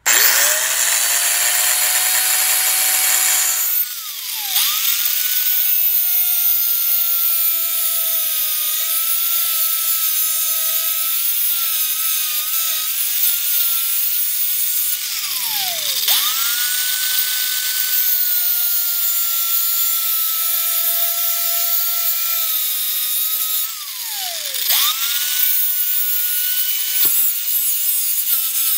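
Angle grinder with a shortened metal cut-off blade starting up and cutting through 1-inch steel tube: a high motor whine over a harsh grinding hiss. Three times the pitch drops steeply and climbs straight back up.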